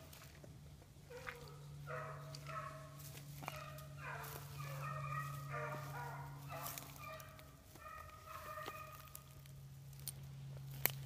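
A pack of patch hounds baying on the trail of a swamp rabbit, several voices overlapping in repeated drawn-out calls that stop about a second and a half before the end. A low steady hum runs underneath, and a single sharp click comes near the end.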